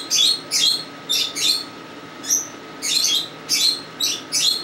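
Cockatiel chirping, a quick series of a dozen or so short, harsh calls, some in pairs.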